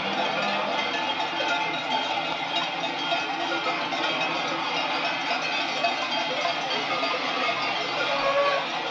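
Many cowbells clanking and ringing together in a dense, continuous jangle as a large herd of cows walks past.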